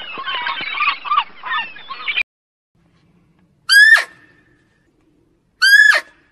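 A flock of gulls calling over one another, cut off suddenly about two seconds in. After a pause, two loud shrill animal calls come about two seconds apart, each sliding steeply down in pitch.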